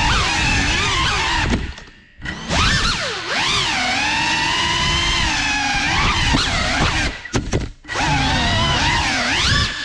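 GEPRC FPV quadcopter's brushless motors whining, the pitch swooping up and down quickly with throttle. The whine drops out briefly twice, about two seconds in and again near 7.5 seconds, as the throttle is chopped.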